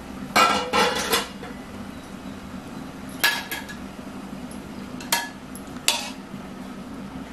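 A metal serving spoon knocking and clinking against a metal cooking pot full of rice. A quick cluster of ringing clanks comes about half a second in, then single clinks about three, five and six seconds in.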